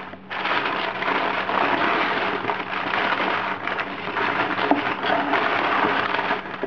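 Packing paper being crumpled and torn away by hand in a continuous crackling rustle, starting a split second in.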